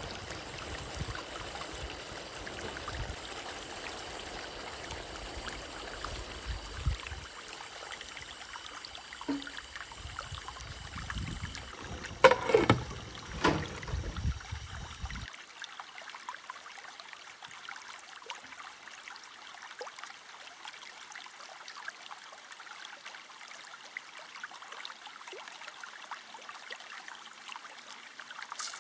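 Food cooking in a pan, a steady bubbling hiss, with a few louder clattering knocks about halfway through.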